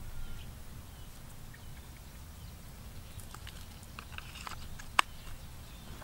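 Gear being handled in a canvas backpack: faint rustling and small clicks, with one sharp click about five seconds in, over a low steady rumble.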